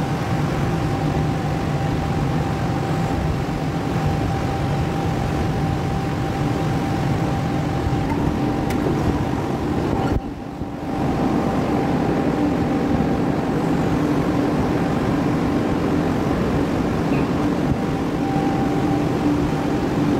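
Multi-motor glass edging machine running: a steady mechanical hum with a constant whine on top, dipping briefly about halfway through.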